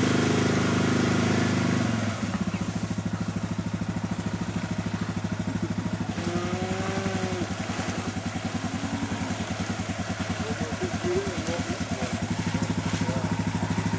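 ATV engine idling with a steady, even thumping beat, a little louder for the first two seconds and then settling.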